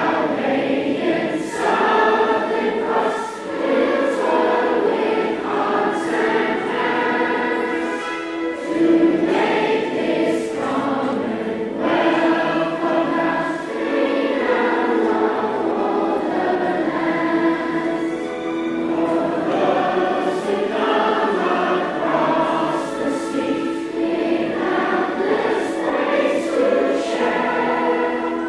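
A choir singing a slow song with long held notes.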